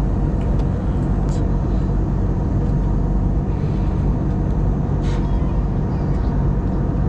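Steady jet engine and airflow noise inside an airliner cabin in cruise, heard from a window seat by the wing-mounted engine, with a couple of faint ticks.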